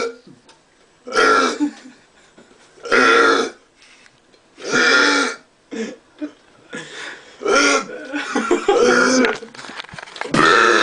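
Men belching deliberately one after another, loud pitched burps about every two seconds, then a quicker run of shorter ones and a long burp starting near the end.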